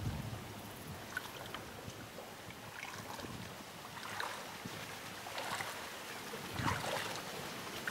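Shallow water splashing and sloshing around legs wading through a weedy, lily-covered flooded field, in irregular splashes over a steady background hiss.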